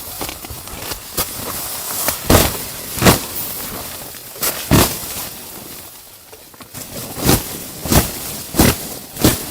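A series of sharp impacts over a steady hiss. The impacts are scattered at first, then fall into a regular beat of about one every 0.7 s in the last few seconds.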